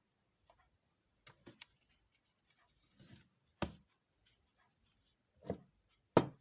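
Small clicks and knocks of watchmaker's tools and watch parts handled on a work bench during disassembly of a mechanical wristwatch: a few light ticks, then single sharper knocks about three and a half and five and a half seconds in, and the loudest just before the end.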